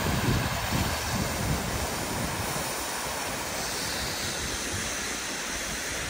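Steady rushing of water falling from a partly frozen waterfall, with wind buffeting the microphone in low gusts, strongest in the first couple of seconds.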